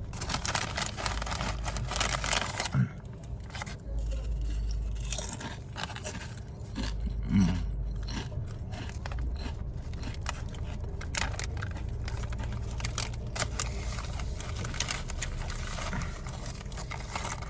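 Foil chip bag being handled, crinkling and rustling in irregular scratchy bursts.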